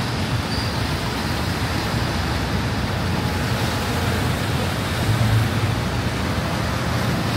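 Heavy rain falling, a steady rushing noise, mixed with a low rumble of road traffic.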